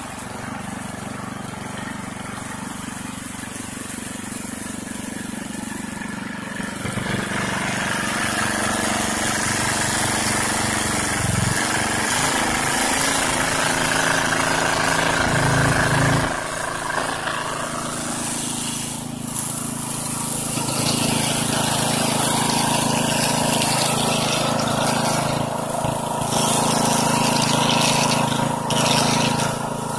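Red Lion semi-trash water pump's 208cc engine running steadily as the pump draws muddy water up its suction hose, louder from about a quarter of the way in.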